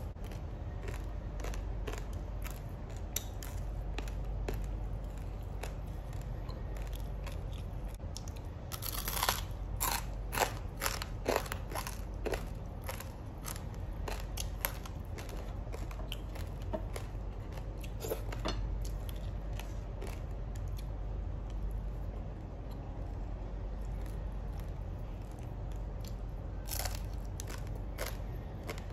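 Close-up eating sounds: crisp food being bitten, crunched and chewed, a run of small crackling crunches with a burst of louder crunches about nine to twelve seconds in.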